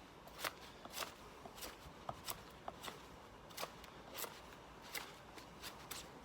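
Broc Tracker knife blade stripping bark from a freshly cut green stick with quick push cuts: a run of short scraping strokes, about two a second.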